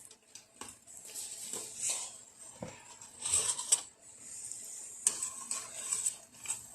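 Hot oil sizzling as small burger buns deep-fry, in several swells, with a metal utensil clicking against the pan while the browned buns are lifted out of the oil.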